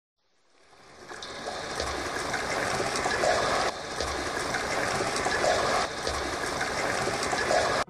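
A steady water-like noise, like a running stream, fading in over the first second, with faint low pulses about every two seconds.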